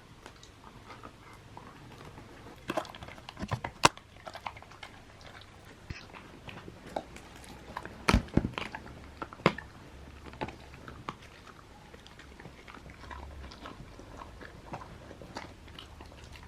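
Husky-malamute dog chewing a Greenies dental chew: irregular wet crunches and bites, with the loudest crunches about four and eight seconds in.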